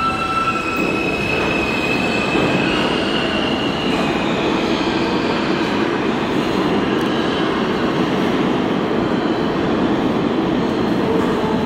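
New York City subway train running past through the station on the express tracks: steady noise of wheels on rail, with high wheel squeal that rises slightly in pitch over the first few seconds.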